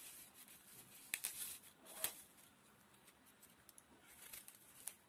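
Small knife cutting the core out of an apple half: faint crisp cuts and scrapes, with a few sharp clicks about one and two seconds in and again near the end.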